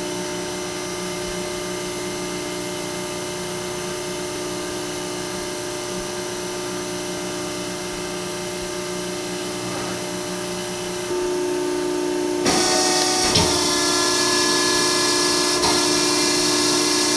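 Hydraulic power unit of a 100-ton Wysong CNC press brake running with a steady hum. Around eleven to twelve seconds in it gets louder and a hiss joins in.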